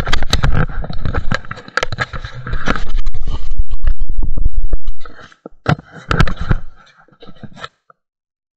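Handling noise from a GoPro being moved about: loud scraping and rubbing on the camera, with many sharp knocks. The loudest stretch comes about three to five seconds in, and it turns mostly quiet with a few clicks near the end.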